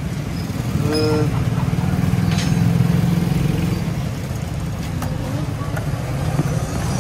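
Steady low rumble of a motor vehicle engine running close by, swelling for a second or so about two seconds in. A short pitched sound comes about a second in, and a few light clicks are heard later.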